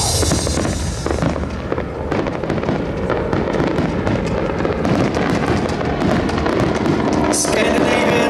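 Fireworks and aerial pyrotechnics crackling, a dense run of rapid pops with brief hissing flares near the end, over music.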